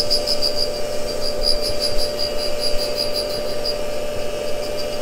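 Tool and cutter grinder's wheel grinding an end mill: a steady machine hum under a fast, even, high-pitched grinding rasp that weakens about three-quarters of the way through as the cut sparks out.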